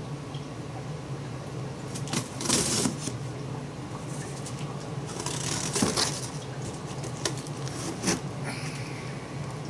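A cardboard box being opened by hand, with several bursts of ripping, scraping and rustling over a steady low hum.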